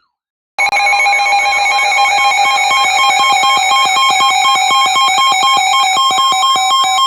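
Weather radio alert alarm for a new severe thunderstorm warning: a loud electronic warbling ring, pulsing several times a second over steady tones, starting about half a second in.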